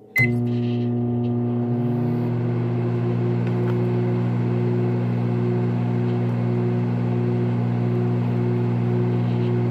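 A loud, steady machine hum of several fixed low tones, one of them pulsing evenly, switching on suddenly just after the start.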